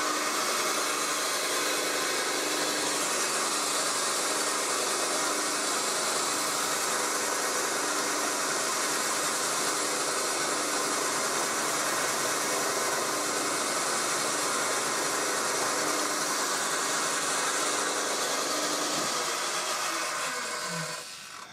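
Milling machine spindle running at 600 RPM with a home-made tangential-insert carbide face mill taking a light 0.1 mm test cut across a steel block: a steady whir at an even level. About 20 s in the spindle is switched off and winds down, the pitch falling as it slows.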